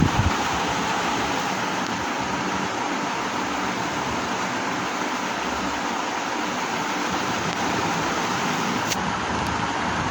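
Arge Classic Standart four-blade ceiling fan running steadily: an even rush of moving air with a faint motor hum.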